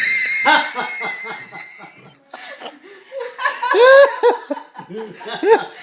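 People laughing in bursts. Over the first two seconds a steady high buzz from the tethered cicada runs under the laughter, then stops abruptly.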